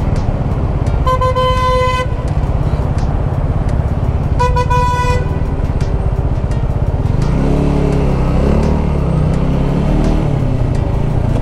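Two honks of a vehicle horn, each under a second and about three seconds apart, over a steady engine and road rumble in traffic. From about seven seconds in, an engine's pitch rises and falls as it revs.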